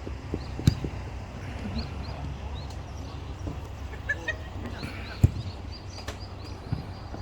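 Two sharp thuds of a football being kicked, one just under a second in and one a little after five seconds, over a steady low rumble of wind on the microphone. Small birds chirp briefly in between.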